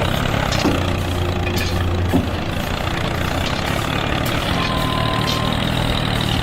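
A machine's engine running steadily at an even idle-like pitch, with a couple of brief knocks in the first few seconds.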